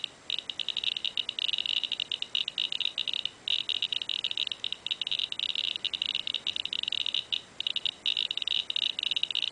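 Victoreen CD V-700 Geiger counter clicking rapidly and irregularly, with a few brief pauses, as its probe detects radiation from a thorium- and uranium-bearing ekanite gemstone. The count rate corresponds to about 2.5 millirem per hour, about as radioactive as the counter's depleted-uranium check source.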